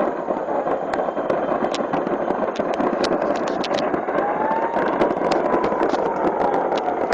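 Stored fireworks going off in a burning fireworks factory: a continuous crackling rumble dense with sharp pops and bangs, and a faint whistling tone gliding through the middle.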